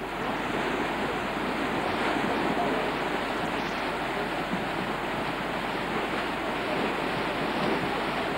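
Floodwater pouring over a weir: a steady, heavy rush of churning water.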